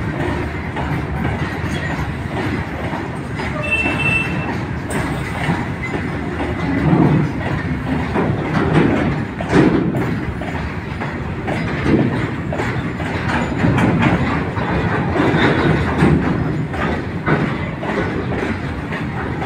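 Indian Railways BOXN open freight wagons rolling past close by, a steady rumble of steel wheels on rail with louder knocks every second or two as wheel sets cross rail joints. The train is pulling out of a station and gathering speed.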